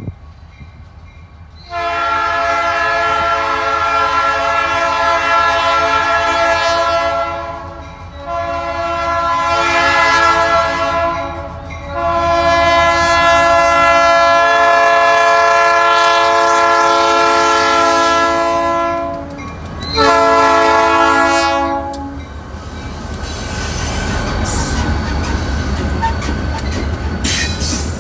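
A diesel freight locomotive's air horn sounds four loud blasts for the grade crossing, each a chord of several notes. The third blast is the longest and the last is short. Then the locomotives and loaded cars rumble past with the clatter of wheels on rail.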